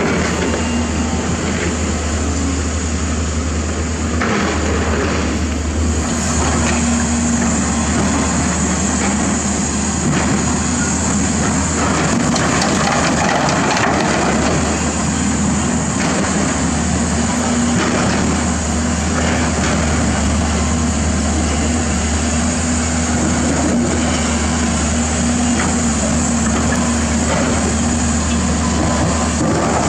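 Diesel engines of dump trucks and hydraulic excavators running steadily, a continuous low drone.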